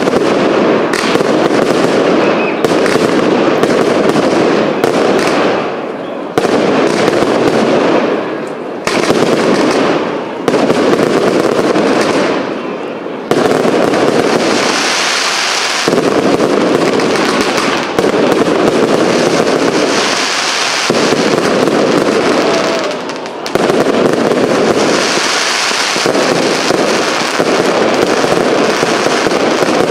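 A cake firework firing a continuous barrage: launches and shell bursts follow each other in quick succession with hardly a pause. From about halfway in, stretches of higher hissing crackle come and go among the bangs.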